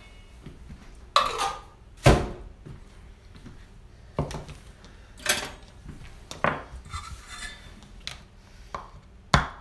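Several separate clinks and knocks of a metal spoon, a can and a stainless steel mixing bowl being handled and set down on a table. The loudest knock comes about two seconds in.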